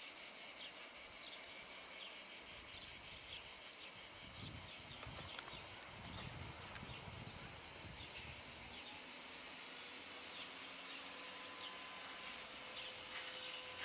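A steady, high-pitched chorus of insects chirring, pulsing rapidly for the first few seconds and then running on evenly.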